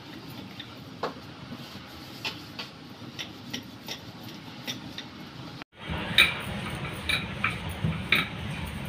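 Wooden rolling pin rolling out a stiff wheat-flour dough on a table mat: a low rumble of rolling with scattered light clicks and taps, breaking off briefly about six seconds in and then coming back louder with more frequent clicks.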